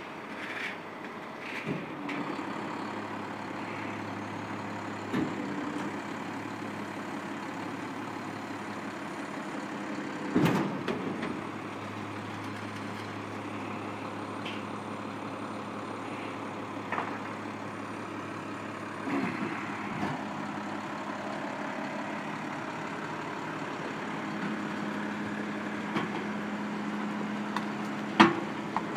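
DSNY rear-loading garbage truck's diesel engine running steadily, with several sharp clanks and thumps as refuse is handled at the rear hopper. The loudest clank comes about ten seconds in, and further knocks come about two-thirds through and near the end.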